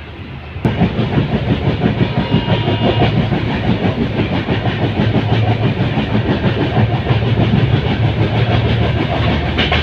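Passenger train running along the track: a steady rumble and rattle of the carriage on the rails, which jumps suddenly louder about half a second in.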